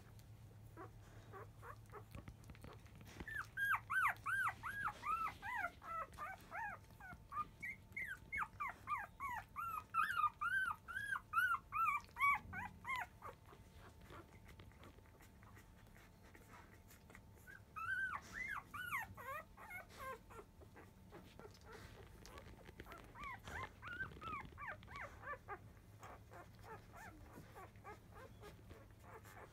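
Five-day-old Labrador retriever puppies squealing and whimpering while nursing: rapid runs of short, high, rising-and-falling cries, one long run followed by two shorter ones, with quiet stretches between.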